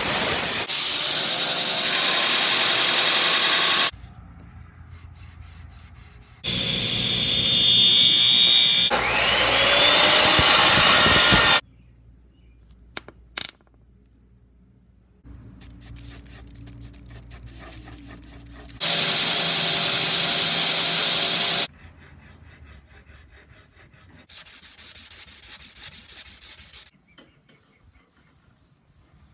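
A run of knife-making workshop sounds: several loud bursts of abrasive grinding or sanding on steel, each a few seconds long, with quieter machine running and a few sharp clicks in the gaps between them.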